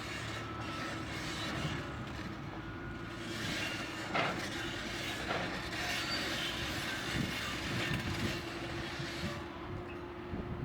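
Excavator working: its diesel engine runs steadily with a constant whine over it, and a few short knocks come through, the loudest about four seconds in.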